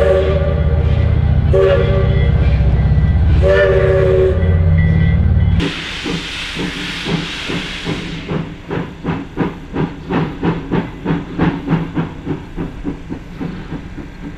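A train whistle sounds short blasts about every two seconds over the low rumble of a departing train. Then the 0-4-0 tank steam locomotive #6 blows a loud hiss of steam from its open cylinder cocks and pulls away with rapid exhaust chuffs, about three a second, fading near the end.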